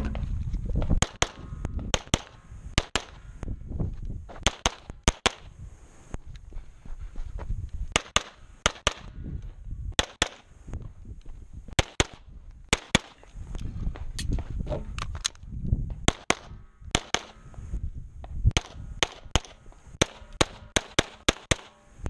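Pistol shots fired at close range during a timed practical-shooting stage, mostly in quick pairs (double taps) about a second apart. The string pauses briefly now and then, with low movement rumble between the shots.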